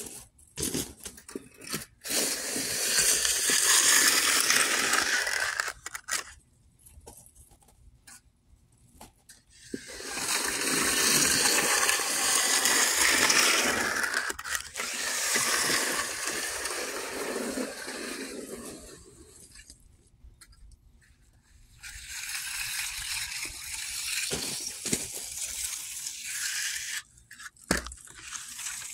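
Steel hand trowel scraping across wet, fresh concrete as a slab is finished by hand. There are three long stretches of scraping with quiet gaps between them.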